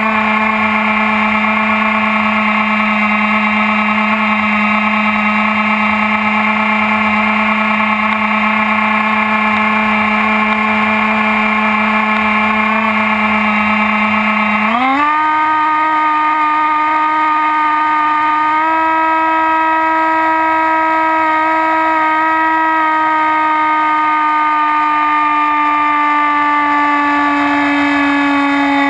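Axn Floater Jet RC plane's electric motor and propeller, heard from the onboard camera, whining at a steady pitch. About halfway through the throttle is opened and the pitch steps up, then sags slightly toward the end.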